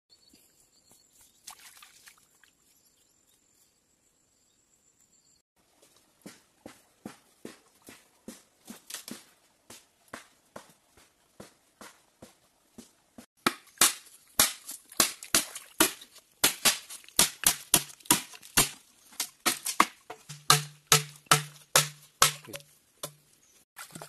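Footsteps crackling through dry leaf litter and twigs: a run of sharp cracks, sparse at first, then loud and quick from about halfway on.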